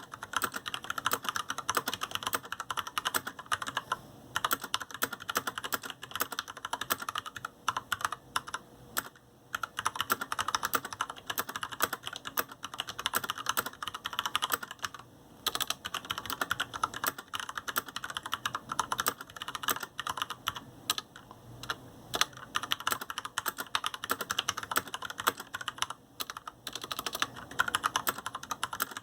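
Fast, continuous typing on a GANSS GS87-D mechanical keyboard with Cherry MX Red linear switches and PBT keycaps: a steady stream of keystroke clacks, broken by a few brief pauses.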